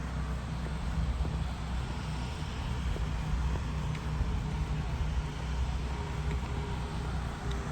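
Steady motor-vehicle running noise: a constant low engine hum under an even rushing haze, with no breaks.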